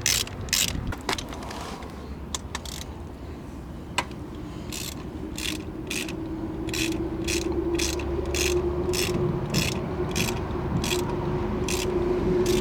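Ratchet wrench clicking as spark plugs are unscrewed from the engine: an even run of sharp clicks, about two or three a second, through the second half, with a steady hum underneath.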